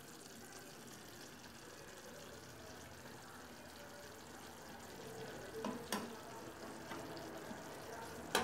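Onions and minced meat sizzling faintly in a frying pan, with a metal spoon stirring and knocking against the pan a few times in the second half.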